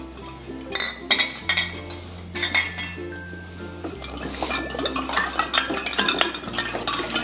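Glass bottles clinking against one another as they are handled and rinsed in a tub of water, with the water sloshing. Background music with a steady bass line plays underneath.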